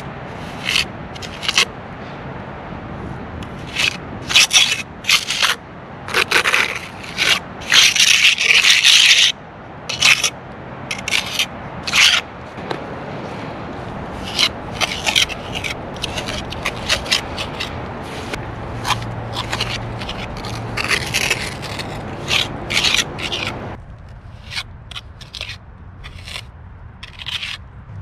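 Steel pointing trowel scraping wet mortar into the joints between fieldstone veneer stones, a run of short, irregular scrapes, with a longer stretch of scraping about eight seconds in.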